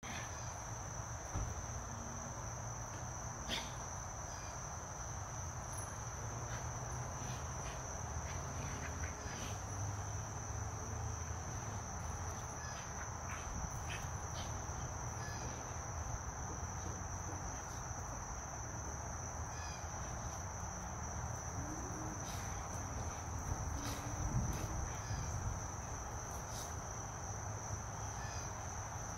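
Steady high-pitched chirring of a cricket chorus. Scattered light scuffs and thumps come from two dogs wrestling in loose dirt.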